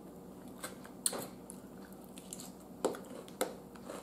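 Eating sounds: a fork picking at a chopped salad and the eater chewing, giving about four short clicks and crunches over a faint steady background.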